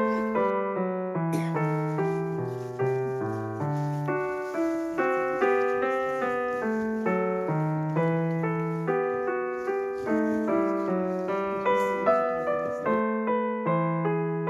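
Background piano music: a steady run of struck notes, a melody over a moving bass line.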